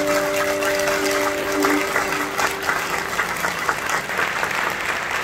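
Audience applauding, a dense crackle of clapping, while the last held notes of the music die away in the first two seconds or so.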